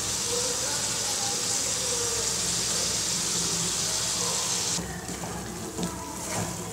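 Mushrooms and tomato masala sizzling steadily in an aluminium kadai. The sound drops off abruptly nearly five seconds in, and quieter sizzling follows with a spoon stirring in the pan.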